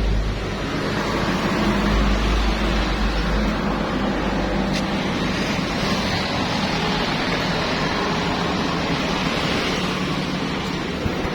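Petrol-engine pressure washer running steadily, its low engine hum under a loud rushing hiss of water spray; the hum is strongest for the first few seconds, then fades back under the spray.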